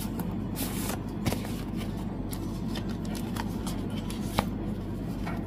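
Fan-kit packaging being handled: light rustles and small clicks of paper and card, with two sharper taps about a second in and near the end, over a steady low hum.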